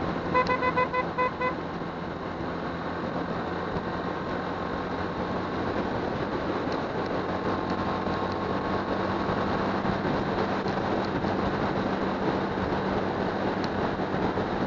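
A vehicle horn beeps about six times in quick succession, about half a second in. Under it runs the steady rush of wind and road noise from a moving motorcycle, with a low engine hum.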